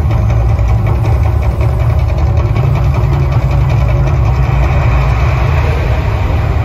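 The Mirage's man-made volcano erupting, with gas flames shooting from its peak and across the lagoon: a loud, steady deep rumble.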